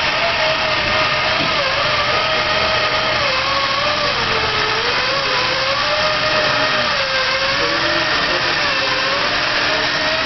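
Lego robot's small electric drive motors and gear train whining steadily, the pitch wandering up and down as the motor speed changes while it steers.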